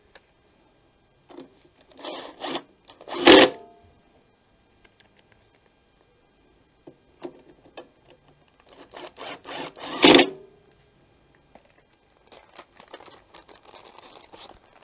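Cordless driver running in two short bursts, about two seconds in and again around nine seconds, as it drives screws into the plastic air-filter backplate of a Briggs & Stratton 500E engine. Each burst ends in a sharp loud peak. Near the end comes a fainter rustling of a plastic bag around a new foam air filter.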